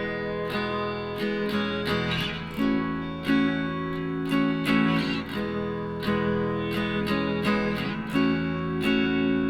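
Background music: acoustic guitar playing plucked and strummed chords in a steady rhythm.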